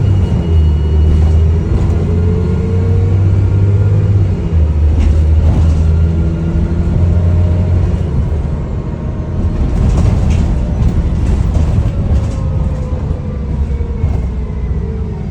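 Dennis Trident double-decker bus engine running under load, its note stepping up and down, with the turbocharger whistle rising and falling over it. A few sharp ticks or rattles come about two-thirds of the way through.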